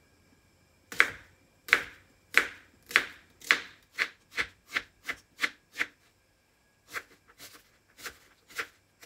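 Kitchen knife chopping a white onion on a plastic chopping board: a row of sharp cuts that quicken partway through, a short pause, then a few more uneven cuts.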